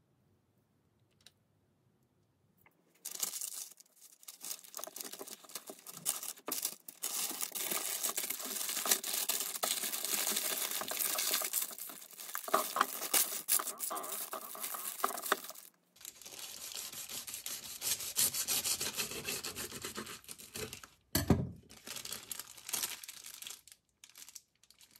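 Close crinkling and scraping handling noise, in irregular stretches. It starts about three seconds in and has short breaks, with a cut at about 16 seconds.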